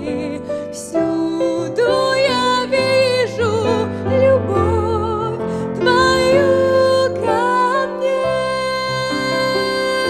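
A woman singing a slow, tender Russian-language song into a handheld microphone, holding notes with vibrato, over soft instrumental backing.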